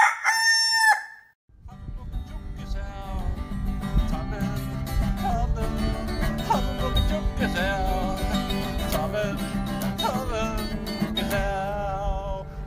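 A rooster crows once in the first second. It stops abruptly, and after a brief silence music starts and plays on.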